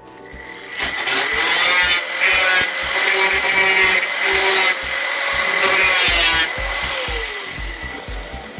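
Hand-held power tool working sheet metal. Its motor whine rises about a second in, runs loud and steady, then winds down near the end.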